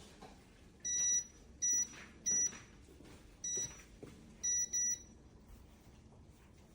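Electronic beeps from the VAL CUCINA air fryer toaster oven's control panel: six short, high-pitched beeps at irregular intervals. The first is a little longer and the last two come in quick succession.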